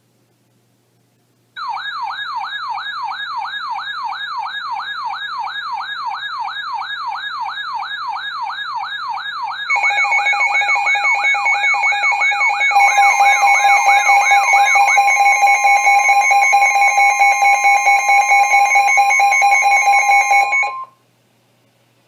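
Electronic siren sweeping rapidly up and down several times a second. About ten seconds in a steady alarm tone joins it, and a few seconds later more steady tones are layered on top. All of it cuts off together near the end.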